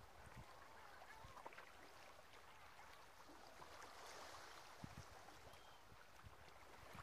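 Faint seashore ambience: small waves lapping gently at the water's edge, with a low wind rumble on the microphone.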